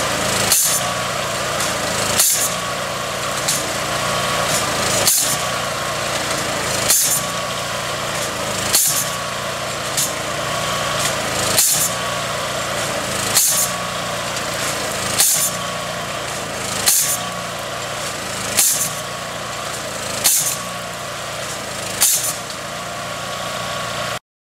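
Steel foundation pile struck over and over by a percussion hammer, a sharp metallic blow about every one and three-quarter seconds over the steady running of the machine's engine: a percussion test of the pile's bearing. The sound cuts off suddenly near the end.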